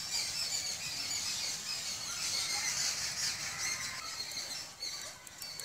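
Continuous high-pitched chirping and squeaking from small birds, with a few faint clicks near the end.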